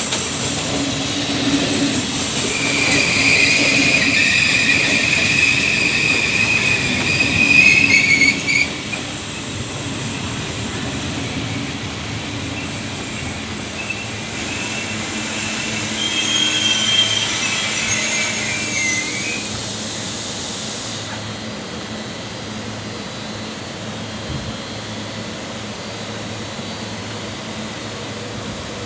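Passenger train pulling into a station, with a loud high-pitched squeal from its wheels and brakes for several seconds, then a second, wavering squeal about fifteen seconds in. Then it settles to a steady, quieter rumble as it slows to a stop.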